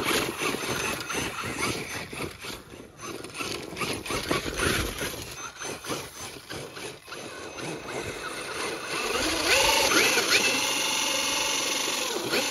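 Axial Ryft RC rock bouncer's brushless motor and drivetrain whining in short throttle bursts while the tyres spin and scrabble in loose dirt. About nine seconds in the whine gets louder, sweeps up in pitch and then holds steady under full throttle.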